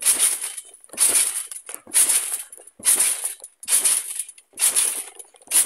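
Steady bouncing on a trampoline: a rustling crunch from the jumping mat with each landing, about once a second.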